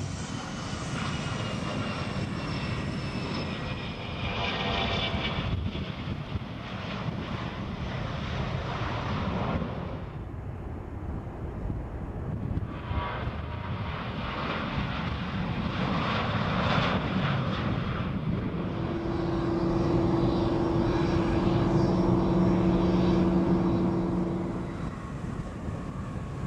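Jet airliners' engines on the runway in a few edited passes. First a Bombardier CRJ regional jet with a falling whine, then, after a break about ten seconds in, a Boeing 737 and an MD-11 trijet rotating for takeoff, with a steady low drone at its loudest near the end.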